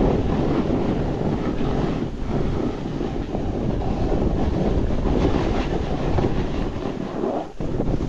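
Wind rushing over the microphone mixed with a snowboard sliding and carving down firm snow, a steady rushing rumble that dips briefly near the end.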